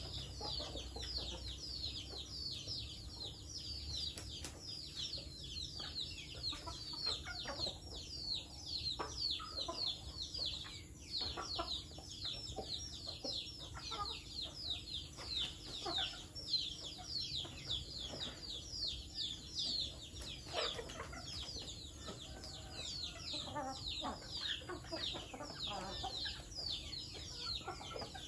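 Backyard chicken flock feeding and clucking, over a dense stream of quick, high chirps that fall in pitch, several a second.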